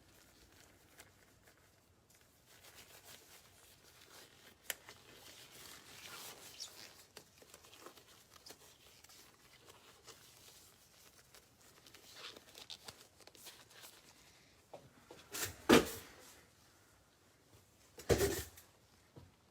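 Gloves being pulled on: faint rustling and handling noises, with two louder brief rustles near the end.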